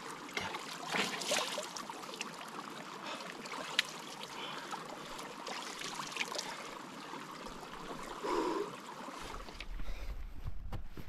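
Footsteps on a steep hill path, short scuffs and clicks over a steady rushing background noise.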